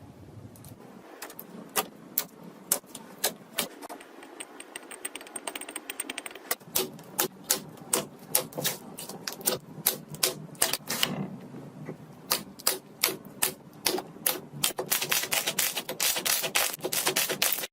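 Slime being pressed and squeezed by hand close to the microphone, giving a run of sharp crackling clicks and pops that come two or three a second at first and crowd into a dense crackle near the end.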